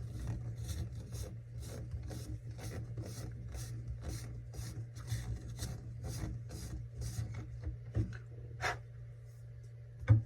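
Gold Tip carbon arrow shaft ends being squared in an arrow squaring jig: quick repeated scraping strokes against the abrasive, about three a second. The strokes stop near the end, followed by a couple of light clicks.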